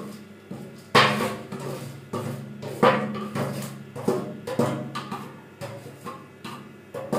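A metal ladle knocks and scrapes repeatedly against a steel plate, about twice a second, tipping soaked rice into a steel cooking pot. A steady musical drone runs underneath.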